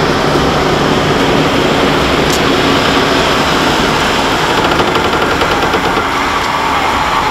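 Heavy diesel farm machinery running steadily under load, a dense, even engine sound without breaks.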